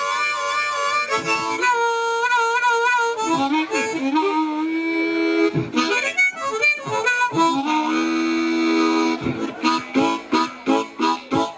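Harmonica played solo into a microphone, a blues train piece: held notes with a warble and a bent note that dips and comes back. From about nine seconds in it turns to a fast, even chugging rhythm.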